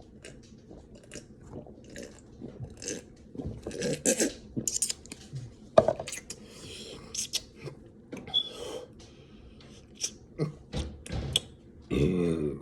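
Close-up chewing and crunching of fast food in a person's mouth: irregular wet clicks and crackles, loudest about four to six seconds in.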